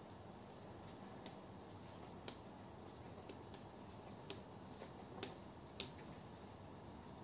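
Plastic pen-spinning mod pen clicking against fingers as it is spun: a scattering of sharp, irregular clicks, the loudest about five to six seconds in.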